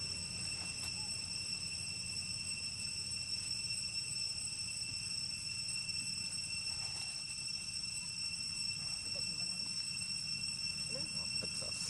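Steady high-pitched insect drone, crickets or cicadas, holding a few fixed pitches without a break, over a low steady rumble.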